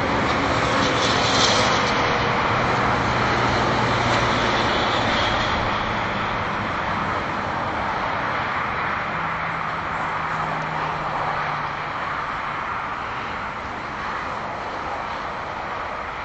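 Highway traffic: a steady rush of tyre and engine noise from passing vehicles. It is loudest a second or two in, with a brief hiss as one vehicle goes by, then eases off slowly.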